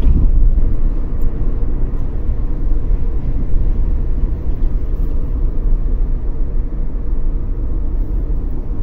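Road noise inside a moving car: a steady low rumble of engine and tyres, gradually getting quieter toward the end as the car slows.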